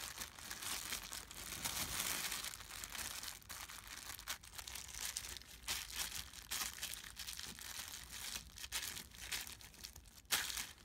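Thin plastic bag crinkling irregularly as a hand squeezes and kneads it, mashing the strawberries inside into juice.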